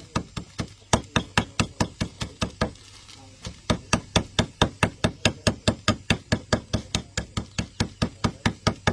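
Rapid, regular knocking, about four sharp knocks a second, with a short pause about three seconds in.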